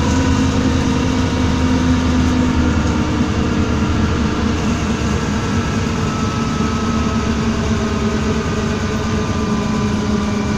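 Cabin noise inside a moving city public-transport vehicle: a steady low hum with a few steady tones over it and road noise.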